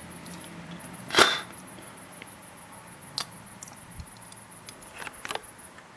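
Insects trilling in a fast, even, high-pitched pulsing chorus. A loud knock comes about a second in, and a few softer clicks follow later.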